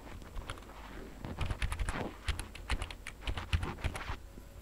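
Typing on a computer keyboard: a quick run of key clicks that stops a little before the end.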